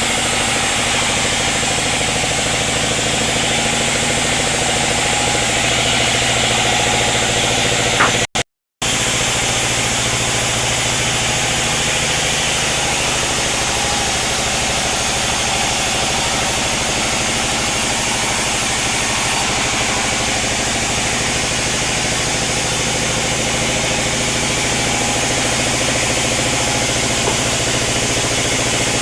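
Sawmill machinery running steadily: a continuous engine-like drone with a dense hiss over it. It cuts out completely for under a second about eight seconds in.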